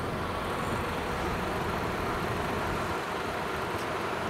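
Large truck's diesel engine running steadily.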